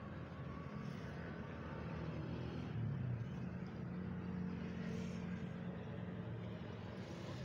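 Road traffic on a nearby street: a steady low engine hum of passing motor vehicles, growing louder through the middle as a car goes by.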